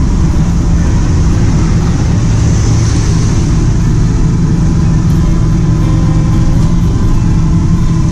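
Steady engine drone and road noise of a motorized tricycle (a motorcycle with a sidecar) under way, heard from inside the sidecar.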